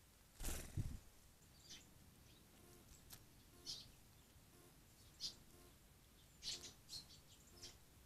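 Small songbirds giving about five short, high chirps, faint against near silence. A brief rustle or thump about half a second in is the loudest sound, fitting a bird's wings as one bird leaves the bath and another arrives.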